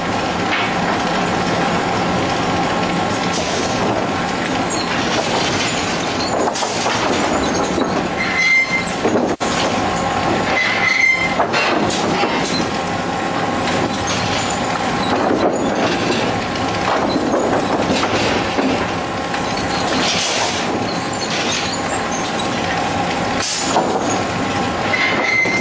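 Sawmill chain transfer conveyors running under a load of boards: a steady, loud metallic clatter of chains and machinery. Three short, high metal squeals cut through it.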